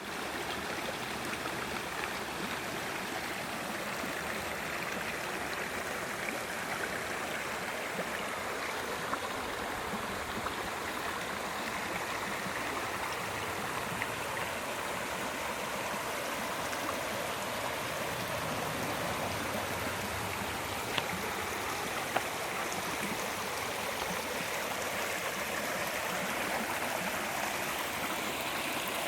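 Creek water running steadily over rocks after rain.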